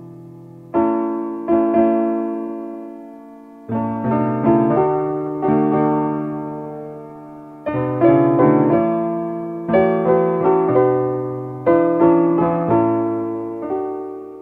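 Slow, gentle piano music: chords and notes struck in short groups every second or two, each ringing and fading away.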